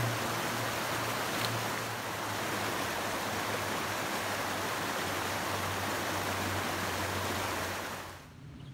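Rushing water, a steady full hiss with a low drone beneath it, that drops away suddenly near the end.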